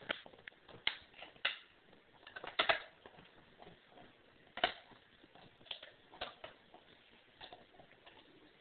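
Dog crunching and gnawing a deer leg bone: irregular sharp cracks and clicks of teeth on bone, the loudest about two and a half seconds in and again just past halfway.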